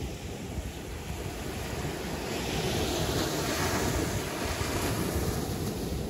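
Sea waves breaking on the shore: a steady wash that swells into a louder hissing surge of a breaking wave about two seconds in and eases off near the end, with wind rumbling on the microphone.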